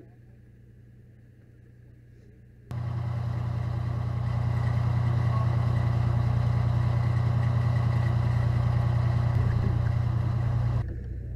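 An engine running steadily close by. It starts suddenly about three seconds in and cuts off suddenly near the end, leaving a quieter steady hum.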